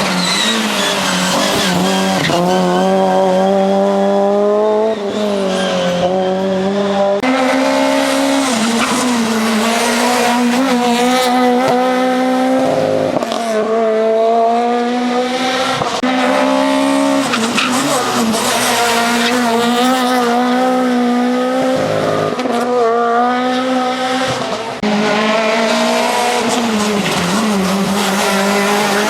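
Ford Fiesta RS WRC's turbocharged 1.6-litre four-cylinder engine pulling hard at high revs, its pitch climbing and dropping again and again through gear changes and lifts. The sound jumps abruptly twice, about seven seconds in and near the end.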